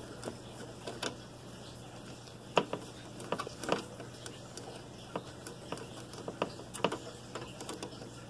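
Scattered small clicks and taps of plastic parts being handled while a screw is put into the egg turner's housing, irregular and fairly faint, over a steady low hum.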